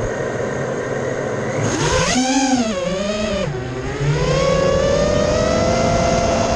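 FPV racing quadcopter's brushless motors and propellers start up suddenly with a whine. About two seconds in they throttle up for takeoff, the pitch swooping up and down, then settle into a steady whine that slowly rises as the quad climbs.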